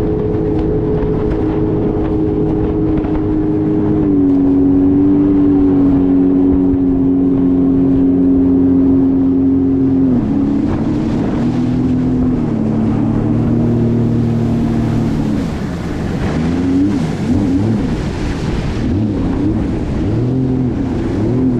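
Jet ski engine running at speed. Its pitch steps down about four seconds in and again about ten seconds in, then wavers up and down over the last few seconds as the throttle changes.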